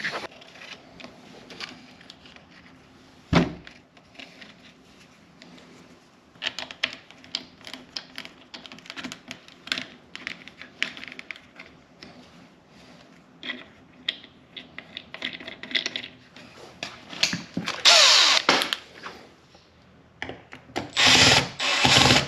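Short runs of a power drill, one about three-quarters of the way through and two more near the end, among scattered clicks and a sharp knock from handling parts and wires during electrical box work.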